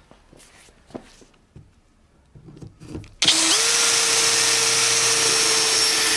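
Bosch 18 V cordless drill starting up about halfway through and running at a steady speed as it bores into wood through a jig's guide hole. A few faint handling knocks come before it.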